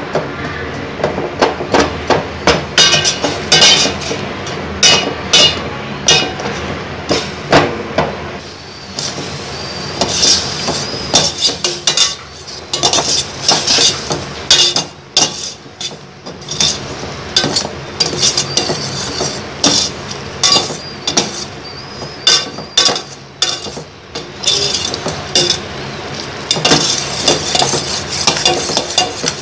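Metal ladle stirring in a steel pot, knocking and scraping against the sides in irregular clinks, over the hiss and bubbling of jaggery boiling down into syrup.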